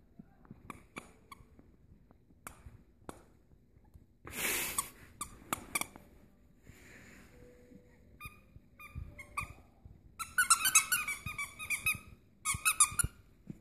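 A squeaky chew toy being chewed by a Maltese dog: scattered clicks, then two runs of rapid, high squeaks, the first about ten seconds in and a shorter one near the end.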